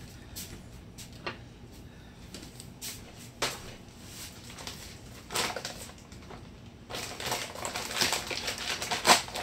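Kitchen handling sounds: scattered sharp clicks and knocks with stretches of rustling clatter. They grow busiest in the last few seconds, and the loudest knock comes near the end.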